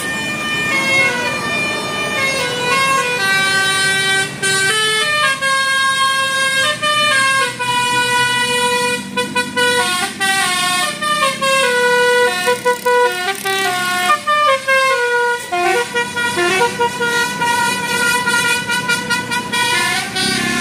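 Bus 'telolet basuri' musical air horn playing a tune: a long run of short horn notes that step up and down in pitch several times a second, with several notes sounding together.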